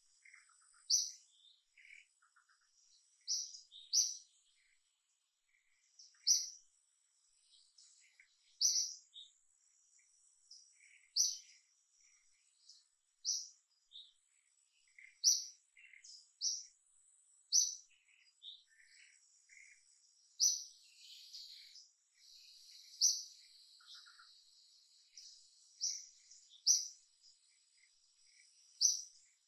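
Birds chirping: short high call notes repeat every second or two, with fainter calls in the background.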